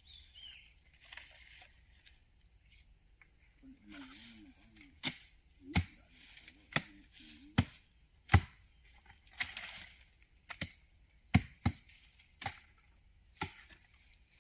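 Sharp knocks, roughly one a second, over a steady high-pitched insect drone.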